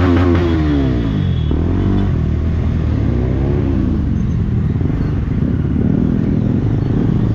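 KTM Adventure motorcycle engine running through a Yoshimura R77 full-system exhaust. The revs fall away about a second in, rise and drop again around three to four seconds in, then hold fairly steady.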